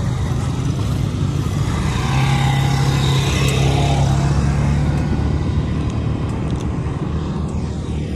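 Several quad bikes (ATVs) driving past, their engines running with a steady hum that swells about two seconds in and fades toward the end.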